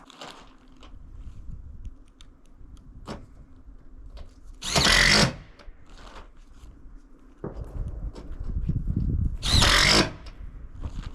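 Power drill driving screws into metal roofing panels, in two short bursts about five seconds apart.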